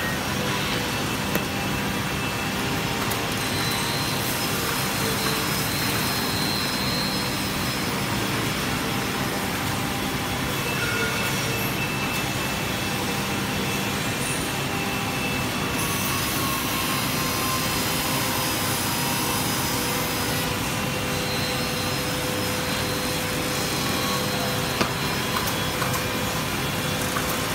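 Joway P-3200EU two-blade sliding table panel saw running steadily, its main and scoring blades spinning, cutting through laminated board in the middle stretch.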